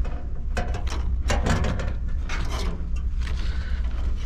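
Gloved hands working a freezestat's thin copper capillary tube along a fan coil unit's coil: scattered clicks, scrapes and rustles over a steady low hum.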